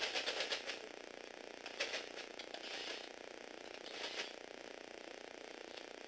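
Plastic gears and tracks of a motorised Lego Technic tracked bulldozer clattering in short bursts of rapid clicks as the model drives and turns. The first burst, right at the start, is the longest, and three shorter ones follow over the next four seconds.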